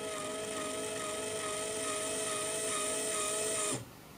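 Linear actuator's DC motor running as the actuator retracts: a steady whine of a few fixed tones with a hiss above it. It cuts off suddenly near the end as the actuator stops on its commanded position.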